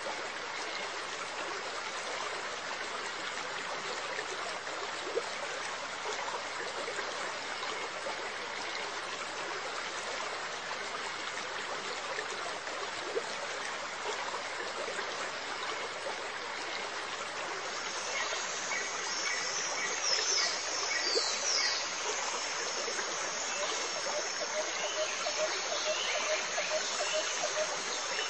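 Steady trickling, splashing water in an aquarium. From about two-thirds of the way through, faint high chirping tones join in.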